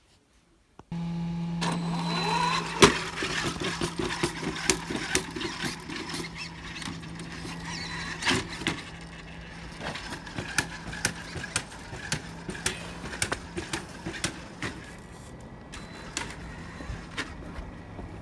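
Traxxas X-Maxx 8S RC truck's brushless electric drive running in snow: a steady motor hum with a brief rising whine as it speeds up, and many sharp clicks and knocks from the truck.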